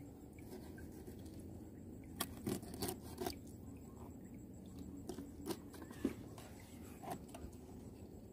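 Scattered light clicks and scrapes, about seven over several seconds, most of them between two and four seconds in, over a faint steady background.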